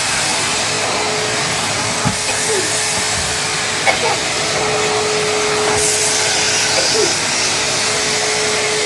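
Vacuum cleaner running steadily on carpet: an even rush of air with a steady hum.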